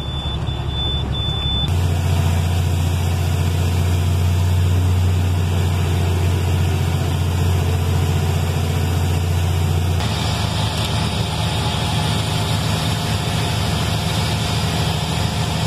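Cargo truck's engine running steadily with a deep rumble. Its sound changes abruptly about two seconds in and again about ten seconds in.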